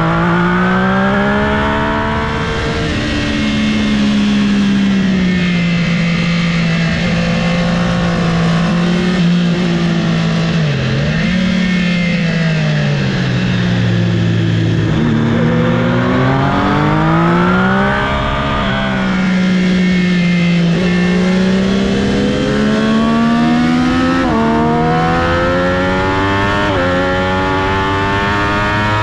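Triumph Daytona 675 race bike's inline three-cylinder engine at full racing pace, revving up through the gears with sharp pitch drops at each upshift and easing off for corners.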